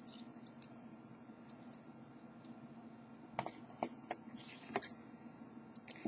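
Small metal padlock and tension wrench being handled: a few faint clicks at first, then a cluster of sharper clicks and a short scrape about three and a half to five seconds in, over a faint steady hum.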